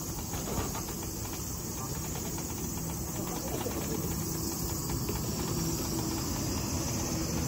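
Steady high-pitched chorus of summer cicadas, over the low steady rumble of an electric wheelchair rolling along.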